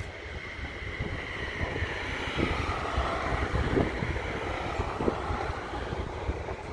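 A classic vehicle drives past, loudest through the middle, with a tone that drops in pitch as it goes by. Wind buffets the microphone throughout.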